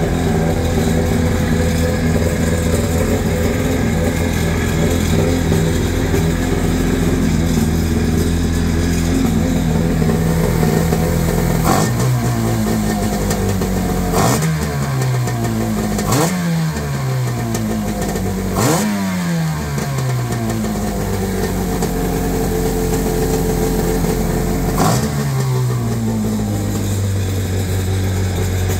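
1999 Arctic Cat Tigershark TSL 770 jet ski's two-stroke engine running on a test, idling steadily, then blipped about five times in the second half, each quick rev falling back toward idle before it settles to a steady idle again. The owner says it runs well.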